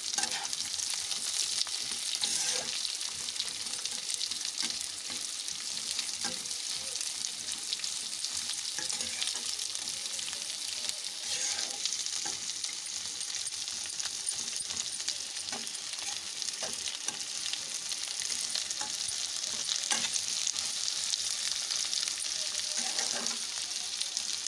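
Sliced spiny gourd (chathail) sizzling steadily in hot oil in a non-stick frying pan while a spatula stirs it, scraping the pan now and then.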